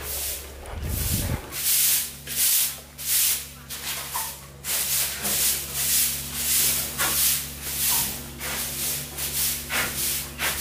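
Soft grass broom sweeping a floor in a run of swishing strokes, roughly one to two a second.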